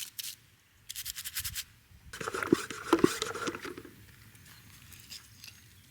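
Scraping and scratching on a pan: a short run of quick strokes about a second in, then a longer, louder stretch with two sharp knocks.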